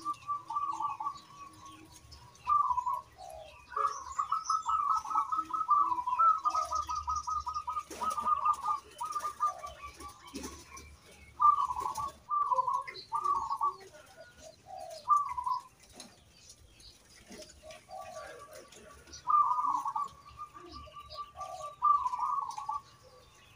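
Zebra dove (perkutut) cooing: fast runs of clipped coo notes strung together, broken by a few single coos, then another fast run near the end.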